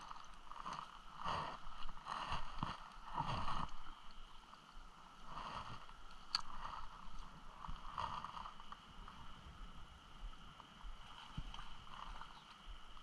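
Water lapping and gurgling at the edge of the river, swelling about once a second for the first few seconds and then quieter. A single sharp click comes a little after six seconds in.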